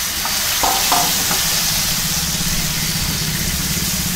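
Gram-flour gatte deep-frying in hot oil in a kadai, a steady sizzle as they are stirred with a wooden spatula. A low steady hum runs underneath.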